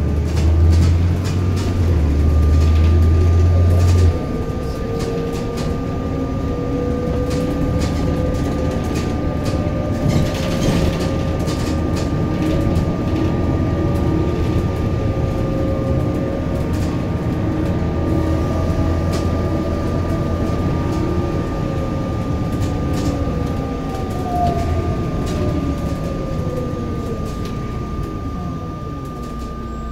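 Bus running along the road, heard from inside the cabin: engine and road noise with a low drone that drops away about four seconds in, a drivetrain whine that slowly rises and falls in pitch as the bus changes speed, a steady high whine, and scattered rattles.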